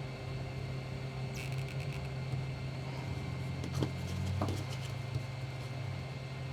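Heat gun blowing steadily with a low hum. About a second and a half in comes a brief scratchy clatter, and there are a couple of small knocks later on.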